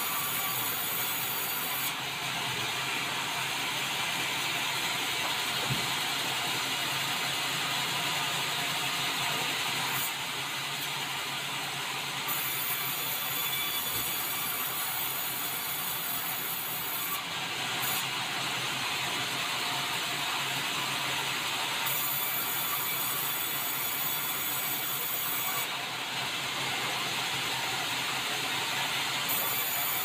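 Large vertical band saw ripping a meranti plank: a steady run of blade through hardwood, its tone shifting several times as the board is pushed through the cut.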